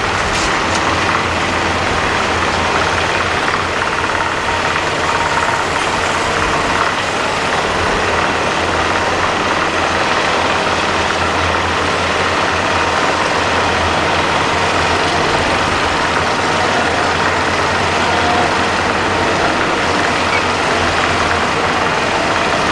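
Heavy diesel construction machinery running steadily together: a Cat 963 track loader and a crawler-mounted drilling rig.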